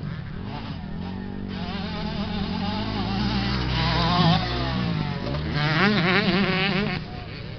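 Motocross motorcycle engines revving up and down through the gears as the bikes ride the dirt track, loudest about four and six seconds in, then dropping away sharply near the end.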